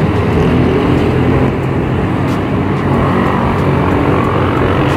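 A moving vehicle's engine and road noise, running steadily.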